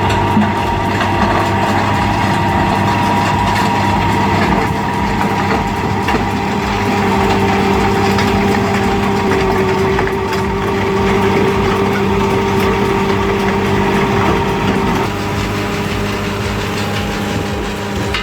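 Engine of a Mericrusher land-clearing machine running steadily, with its drum working the ground. The tone shifts slightly about 15 seconds in.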